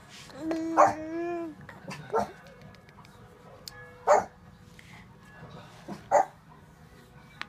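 A drawn-out pitched vocal call about a second long, then three short, sharp bark-like calls spaced about two seconds apart.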